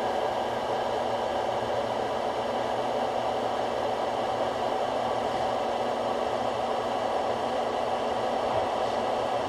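Harbor Freight 4x6 metal-cutting bandsaw running at its slowest speed, the stock blade cutting slowly through thick-walled metal stock: a steady whirring rasp with a low motor hum.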